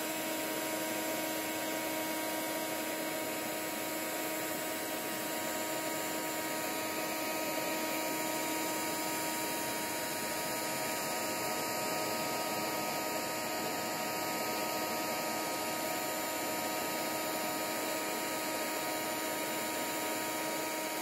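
Heat gun running steadily, its fan blowing hot air in a constant rush with a steady motor hum.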